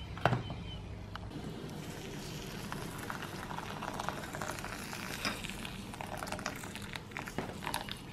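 Hot water from an electric kettle pouring steadily into a bowl of dry couscous.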